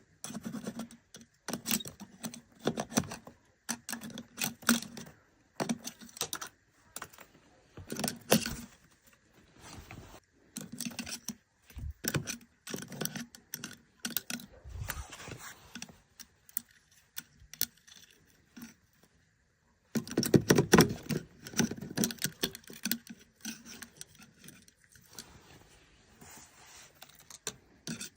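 Irregular clicks, taps and scrapes of a raven working a stick tool against and inside a tube to get at food, with a louder flurry of knocks and handling noise about two-thirds of the way through.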